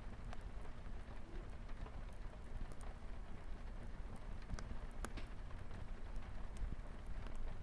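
Light rain with a wood fire crackling: a steady low rumble and hiss, with scattered sharp pops and crackles every second or so.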